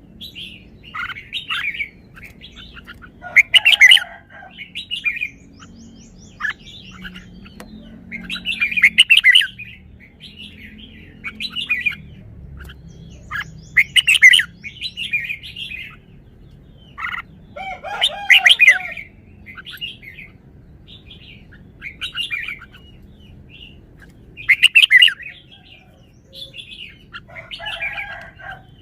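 Red-whiskered bulbul singing: loud, varied song phrases come about every four to five seconds, with softer chirps in between.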